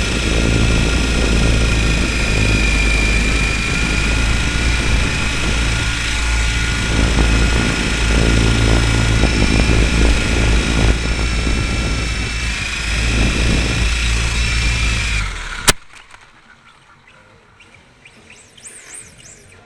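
RC helicopter's motor and rotor whine, heard from a camera on board: a steady whine over a low hum, shifting in pitch a few times. It stops abruptly with a sharp click near the end, leaving only faint background.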